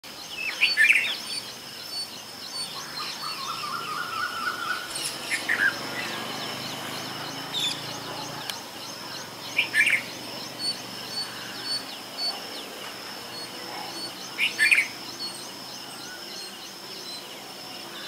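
Red-vented bulbul calls: short, bright calls about four times, roughly every five seconds, over a steady high background of chirping.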